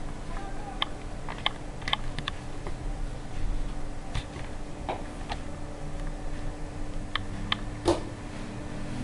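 Irregular light clicks and taps of hands working macramè cords and pins on a pin cushion, over a steady low hum.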